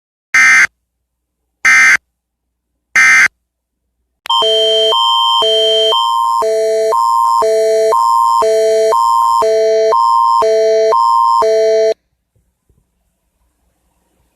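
Three short bursts of the warbling EAS digital data tone, about 1.3 s apart, marking the end of the alert message, followed by a loud alert tone that alternates in pitch at a steady rhythm over a constant high note for about eight seconds, matching the Canadian Alert Ready attention signal.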